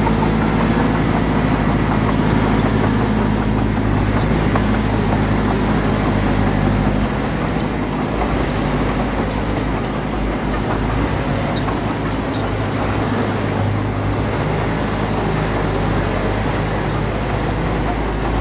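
Diesel engine of heavy earthmoving equipment running steadily under load, its engine note easing slightly and getting a little quieter about seven seconds in.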